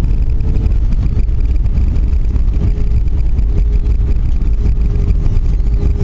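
Airliner cabin noise on the runway after landing: a loud, steady rumble of the jet engines and rolling gear, with a faint steady hum above it.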